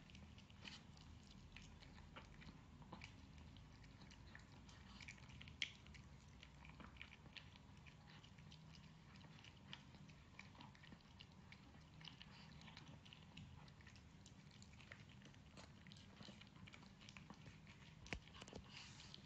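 Small dog eating from a bowl: faint, irregular chewing and crunching clicks, with one sharper click about six seconds in and another near the end.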